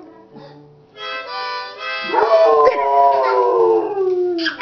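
A harmonica blown in steady chords, joined about two seconds in by a dog howling along: one long howl that slides slowly down in pitch.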